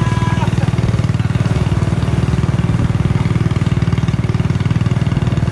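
Small motorcycle engine running steadily at low speed while towing a heavily loaded cargo cart.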